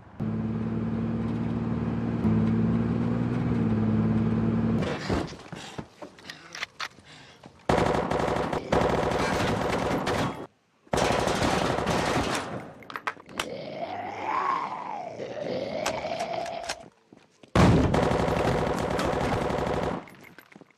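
Long bursts of rapid automatic gunfire, three of them each lasting a couple of seconds, in the second half. Before them, for the first few seconds, a low steady drone.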